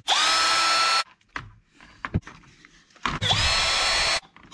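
Cordless electric screwdriver with a nut-driver bit spinning off RC truck wheel nuts: two runs of about a second each, each a whine that rises quickly as the motor spins up and then holds steady, with faint clicks between.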